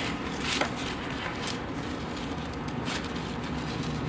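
A few soft rustles of a cloth drawstring pouch being handled and opened by hand, over a steady low hum.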